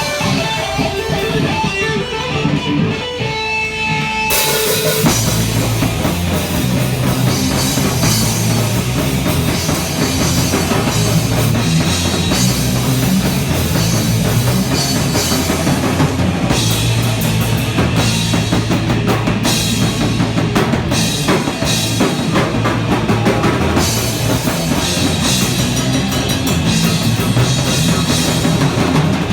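A live rock band playing. For the first few seconds an electric guitar is heard almost alone. About four seconds in, the drums and the rest of the band come in together and play on steadily.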